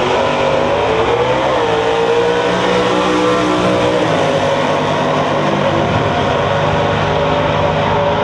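Naturally aspirated drag race cars launching off the line at full throttle and accelerating down the strip. The engine pitch climbs through the launch, drops and climbs again at a gear change about a second and a half in, then holds high as the cars pull away.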